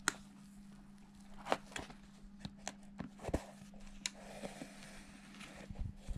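Irregular sharp clicks, taps and soft rustling of hand work with tools and seat-cover material, over a steady low hum.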